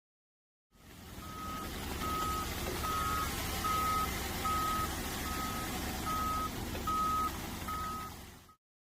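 A vehicle's reversing alarm beeping steadily, about one beep every 0.8 seconds, over steady machinery and site noise. It fades in after a short silence and fades out near the end.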